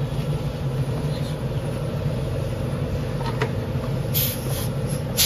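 Motorcycle engine idling steadily with a rapid low pulsing, a short hiss about four seconds in and a sharp click near the end.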